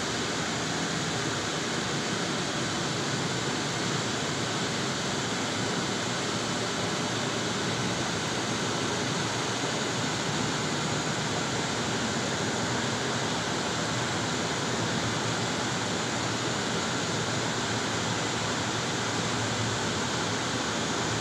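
Steady road and wind noise heard inside a moving car: an even, unchanging hiss of tyres on pavement and air rushing past.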